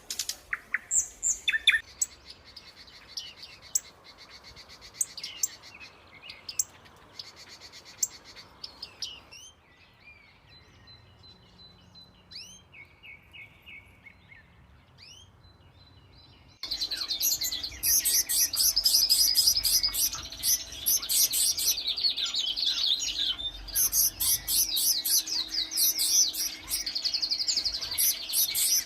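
Small birds chirping and singing, with short high calls and rapid trills. The sound changes abruptly twice, as if spliced from different recordings, and becomes much louder and denser with fast repeated chirps for the last third.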